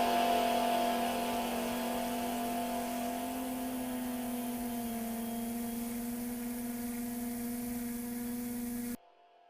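Sustained low droning chord of background music fading slowly, then cutting off abruptly near the end.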